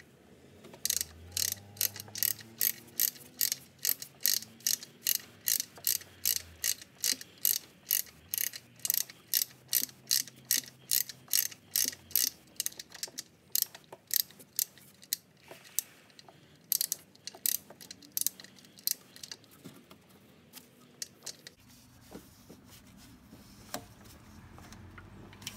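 Ratchet wrench clicking in a fast steady run, about four clicks a second, as the socket turns the engine's oil drain plug back into the oil pan; the clicks thin out partway through and stop about twenty seconds in.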